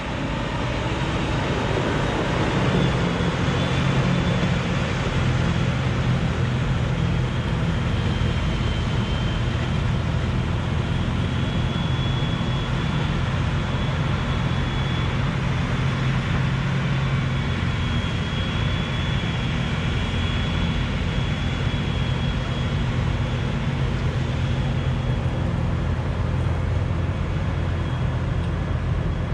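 Large diesel engine of silage-harvest farm machinery running steadily under load, with a faint high whine above the engine note.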